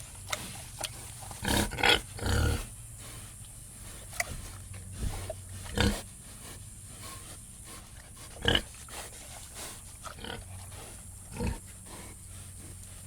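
Pigs grunting in a sty: short, irregular grunts and snorts over a low steady hum, with a loud run of grunts about two seconds in and single grunts later.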